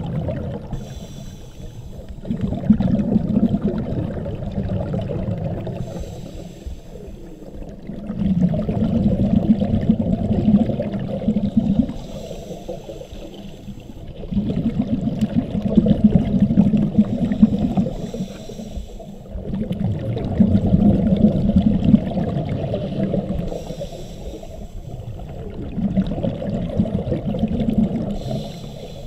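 Scuba diver breathing through a regulator underwater: a brief hiss on each inhalation, then a rush of exhaled bubbles, repeating about every six seconds.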